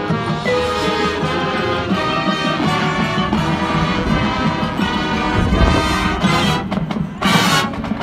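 Marching band playing: brass and woodwinds sounding full chords over drums and front-ensemble percussion, with a loud crash about seven seconds in.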